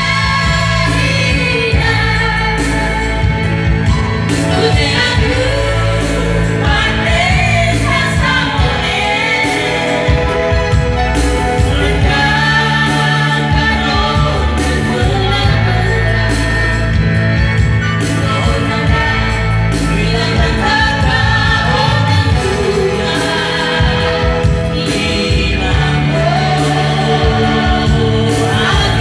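A man and a woman singing a duet through microphones, over an electronic keyboard accompaniment with a steady bass and beat.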